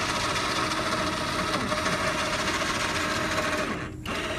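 Small 12-volt electric winch running, its motor whining steadily as it reels in wire rope to pull a loaded hog pen up into a trailer. It stops briefly near the end, then starts again.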